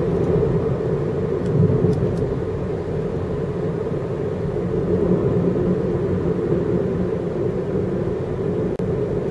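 Steady road and engine noise from inside a moving car cruising along.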